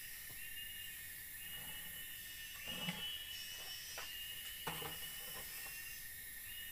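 Steady insect chorus with a shrill call that rises and holds for a second or so, repeating over and over. A few short knocks from bamboo poles being handled, the loudest about three seconds in, others near four and five seconds.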